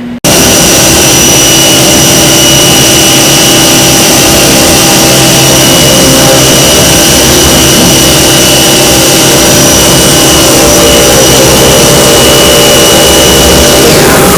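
HAAS CNC milling machine running a cut: a loud, steady machining noise with a constant high-pitched spindle whine, starting abruptly.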